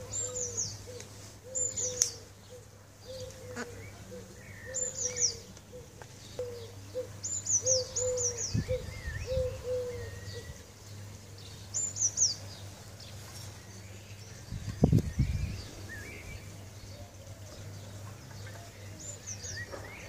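Birds calling: short high chirps that fall in pitch, in ones and pairs every few seconds, over a low cooing note repeated about twice a second through the first half. Two low thumps come about eight and a half and fifteen seconds in, the second being the loudest sound.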